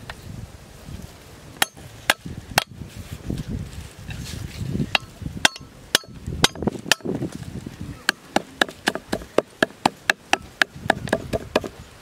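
Cleaver chopping green stalks on a wooden chopping board: sharp knocks, a few spaced strikes at first, then a fast even run of about four chops a second in the second half.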